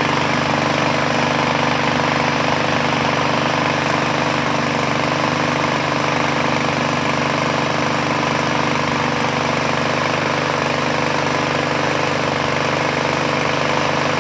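2020 YARDMAX YG1650 walk-behind lawn mower's Rato overhead-valve engine running steadily at an even speed, with some crackling and popping that the owner puts down to water sprayed into the exhaust while degreasing.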